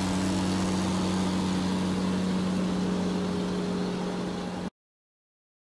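Steady engine-drone sound effect: a low hum with a hiss over it, cutting off abruptly near the end.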